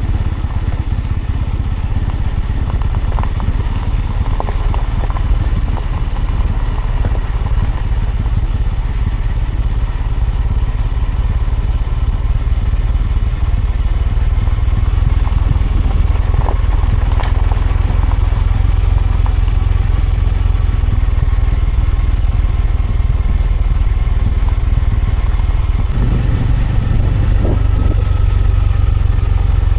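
Bajaj Pulsar N250's single-cylinder engine running steadily while the bike is ridden, with a heavy low rumble that shifts about 26 seconds in.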